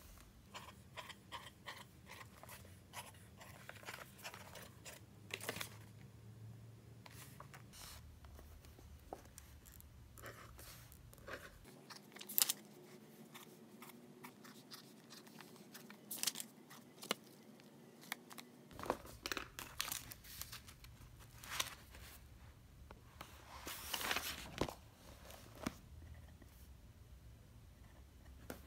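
Quiet paper handling: workbook pages turned and sheets of paper rustling and sliding, with scattered light clicks and a pen scratching as it writes. One sharper click comes about twelve seconds in, and a longer rustle near the end.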